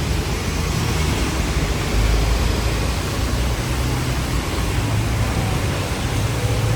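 Hong Kong double-decker tram running, a steady low rumble of wheels on rail and motor with an even hiss over it.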